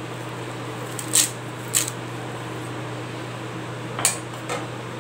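Four brief, light clinks and rustles as fresh coriander leaves are dropped into a stainless-steel mixer jar and handled, over a steady low hum.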